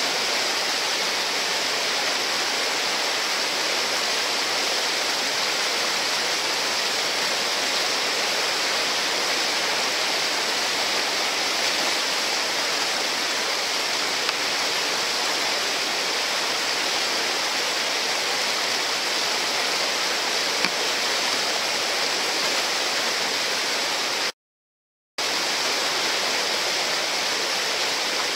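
Steady rushing of whitewater churning through a river hole below a rock weir, swollen by a dam release. The sound drops out completely for under a second near the end.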